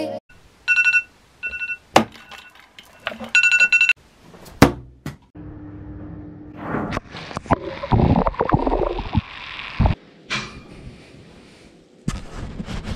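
An alarm beeping in short bursts, with some knocks and clatter, then a shower spraying water for about three seconds.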